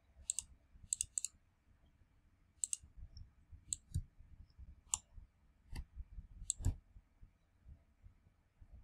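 Computer mouse clicking: a dozen or so short, sharp clicks at irregular intervals, several coming in quick pairs.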